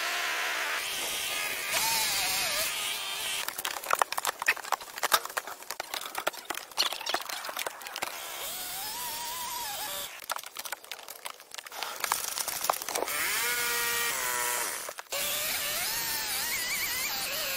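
Woodworking tool sounds: a power tool whining with a rising and falling pitch, and long stretches of rapid, irregular knocks and clicks.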